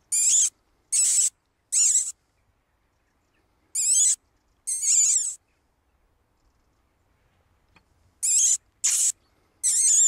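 Hunter's squeaking rabbit call, made by sucking air through pursed lips to draw rabbits out of their burrows: eight short, high squeaks in three groups of two or three, with silent pauses between.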